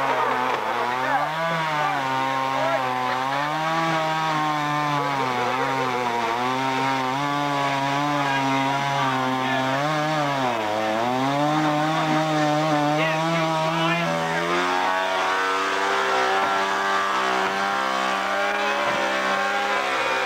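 Two-stroke chainsaw engine running, its pitch rising and falling again and again as the throttle is worked, then held steady at a higher speed for the last few seconds.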